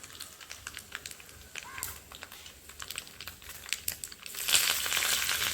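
Mustard seeds crackling and popping in hot oil for a tempering, as a quick scatter of sharp pops. About four seconds in, the oil breaks into a loud, steady sizzle.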